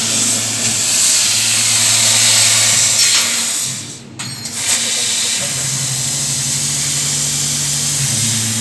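CNC metal laser cutting machine at work: a loud, steady hiss of assist gas at the cutting head over a low machine hum. The hiss cuts out briefly about four seconds in, then resumes.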